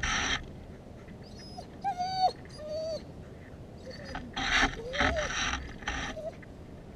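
A dog whining in thin, wavering high notes and giving several short yelps, one at the start and a cluster of three about four to six seconds in.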